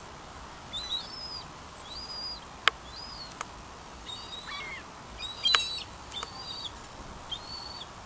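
Gulls calling: a series of short, high, arching calls, roughly one a second. Several sharp clicks cut in, the loudest about two and a half and five and a half seconds in.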